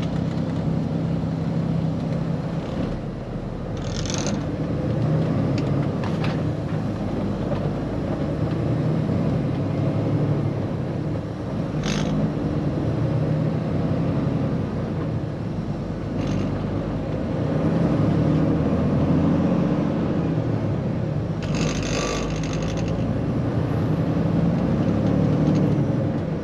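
Semi truck's diesel engine and road noise heard from inside the cab while driving: a steady low drone whose pitch shifts a little as the engine speed changes. A few short hissing or rattling noises cut in, the longest about 22 seconds in.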